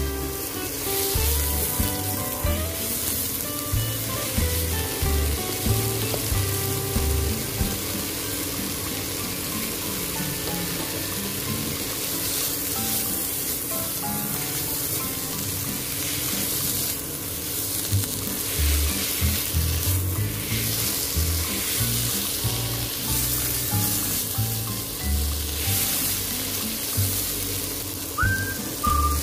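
Pickled cabbage sizzling in hot oil in a nonstick wok while a slotted spatula stirs and tosses it, scraping and knocking against the pan at irregular moments.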